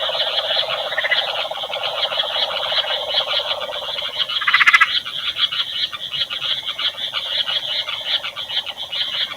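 A dense chorus of frogs calling after torrential summer rain, a continuous mass of rapid pulsing calls. One call stands out louder for about half a second, halfway through.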